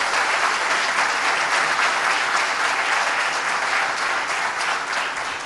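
Audience applauding steadily, many hands clapping at once, easing slightly near the end.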